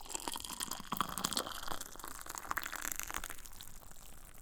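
Tea being poured into a cup: a steady trickle of liquid that tails off near the end.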